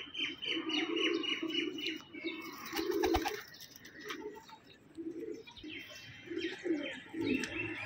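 Domestic pigeons cooing, with repeated low coos, and a fast run of high chirps in the first second. A short flurry of wing flaps comes about three seconds in.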